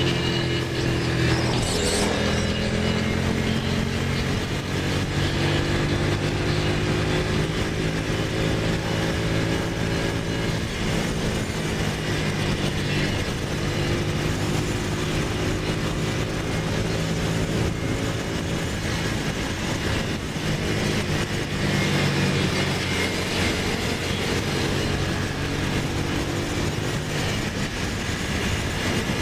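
Ducati motorcycle's V-twin engine running steadily at freeway cruising speed, its note drifting slightly up and down with the throttle, under heavy wind and road noise.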